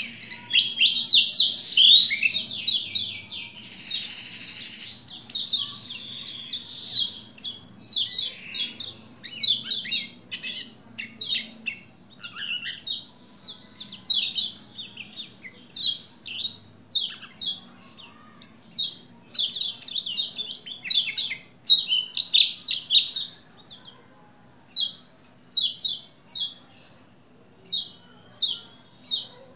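Pleci Lombok, a yellow white-eye, singing in fast runs of high chirps. About halfway through they thin out into short separate chirps roughly a second apart.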